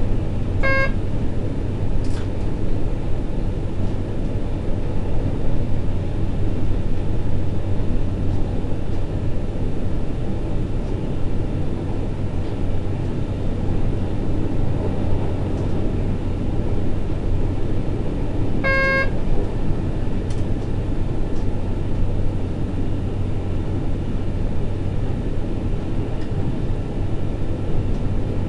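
Berlin S-Bahn electric train running along the track, heard from the driver's cab: a steady rumble of wheels on rail with a constant low hum. A short beep sounds twice, just under a second in and again about two-thirds of the way through.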